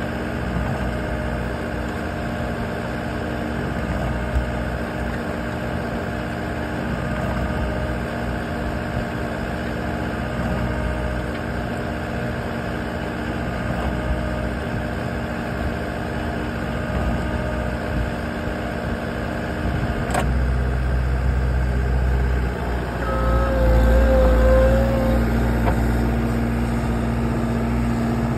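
Loader engine running steadily while it turns the drum of a Flip Screen S-45 rotary screening bucket, sifting dry soil. About twenty seconds in there is a click and the engine gets louder, and a short whine follows a few seconds later.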